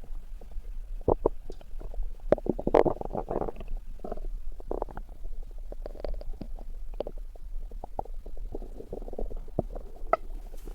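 Human stomach growling: an irregular run of short bubbly pops and gurgles, with a couple of longer gurgling rumbles.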